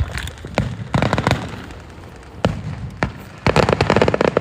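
Fireworks display: a string of sharp bangs, with quick rapid-fire crackling clusters about a second in and again near the end.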